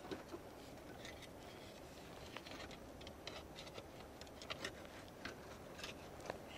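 Faint, scattered clicks and light scrapes of a thin metal hook rod being poked into a rock crevice, probing for a hidden sea creature.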